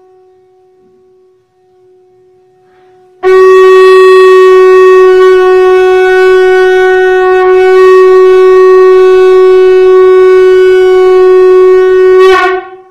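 Conch shell (shankh) blown in one long, loud, steady note of about nine seconds, starting about three seconds in. It ends with a brief wavering flourish, the 'posh' that closes the blast, then cuts off.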